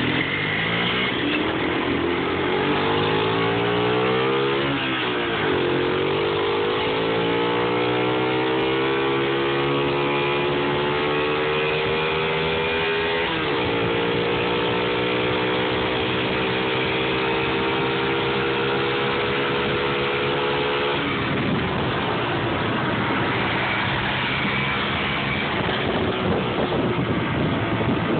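Small 50cc mini bike engine accelerating up through the gears, its pitch climbing and dropping at shifts about four and thirteen seconds in, then running steadily. About twenty-one seconds in the engine note gives way to a rushing noise.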